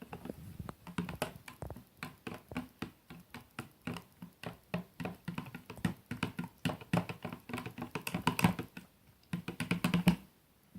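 Slime glue and hot water being stirred in a container: rapid, irregular clicking and tapping of the stirring utensil against the container, pausing briefly near the end.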